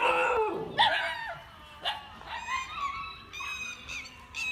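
German Shepherd dog barking angrily: two loud barks in the first second, then fainter high-pitched calls.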